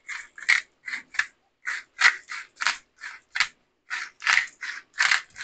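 Pepper mill being twisted to grind pepper, a rasping crunch about two or three times a second.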